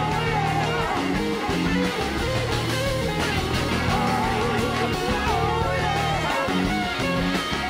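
Live rock band playing an instrumental passage: an electric guitar solos with gliding, wavering notes over steady bass notes and drums.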